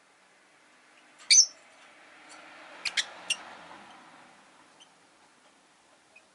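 Rosy-faced lovebirds giving short, sharp chirps: one loud call about a second in, then three quick ones around three seconds in. Behind them a vehicle passing outside swells and fades.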